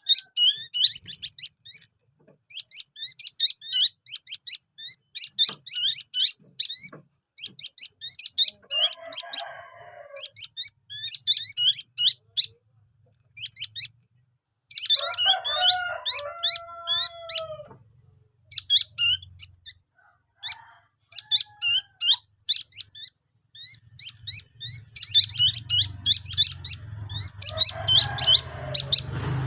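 Ruyuk-ruyuk bird chicks calling in rapid runs of shrill, high-pitched chirps, in bursts with short pauses between.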